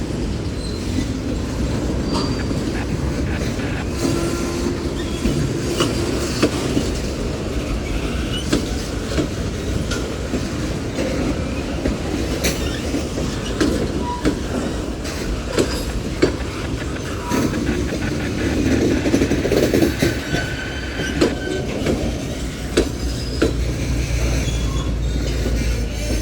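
Cars of a Union Pacific mixed freight train rolling past: a steady rumble of wheels on rail, with repeated sharp clicks and brief high-pitched wheel squeals.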